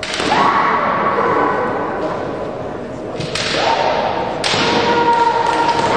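Women kendo fencers' kiai, two long, high, held shouts, broken by sharp cracks of bamboo shinai strikes and stamping feet at the start and about three and four and a half seconds in.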